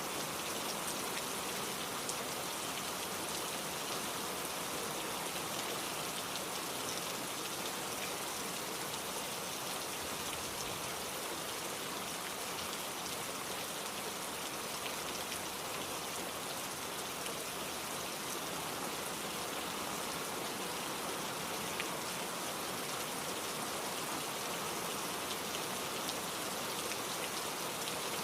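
Steady rain falling on a surface, an even hiss of many small drops.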